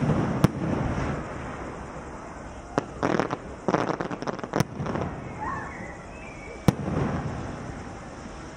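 Aerial fireworks bursting: sharp bangs scattered through, with a quick run of crackling pops about three to four seconds in and rumbling booms between the bangs.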